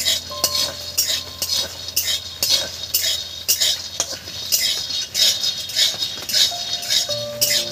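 Metal spatula scraping and stirring raw peanuts in a kadai, about two strokes a second, the nuts rattling against the pan as they dry-roast without oil.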